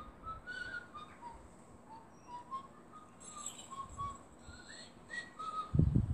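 A person whistling a simple tune, a run of short clear notes that step down and then climb back up. Near the end comes a short burst of low, muffled thuds.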